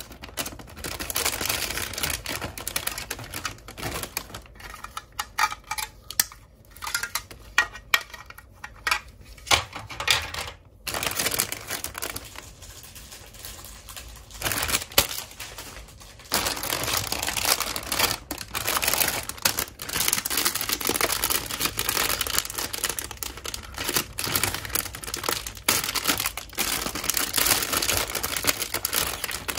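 Clear plastic bags crinkling and rustling as they are handled and opened, with light clicks of hard plastic playset pieces. It goes quieter for a few seconds about halfway through.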